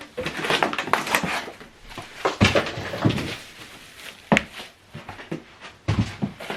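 Packaging handled during unboxing: a string of irregular rustles, scrapes and knocks as the boxes and wrapping are moved about.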